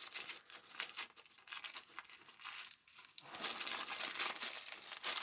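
Plastic packaging of action-figure accessories being crinkled and pulled open by hand: irregular crackling and rustling, with a brief lull near the middle.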